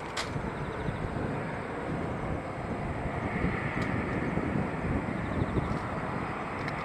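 Eurofighter Typhoon's twin jet engines at taxi power: a steady rumble and hiss that swells slightly about three seconds in.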